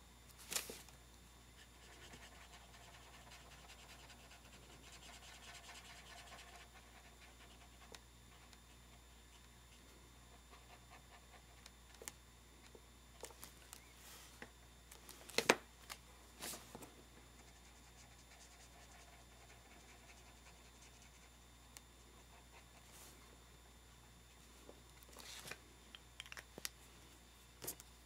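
Felt-tip markers rubbing faintly on paper as small stamped images are coloured in, with a few short sharp clicks scattered through.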